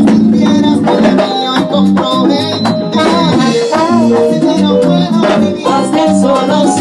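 Salsa band music played live: trombone over percussion with a shaker.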